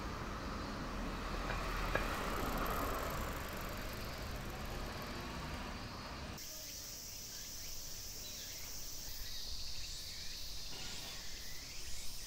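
Steady road-traffic rumble from a city street. It cuts off abruptly about six seconds in to a steady, high-pitched insect chorus.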